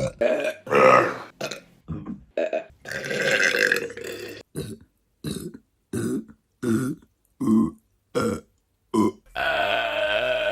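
Women burping: a string of separate belches, some short and some drawn out, with a quick run of about seven short burps in a row, then one long, steady burp starting near the end.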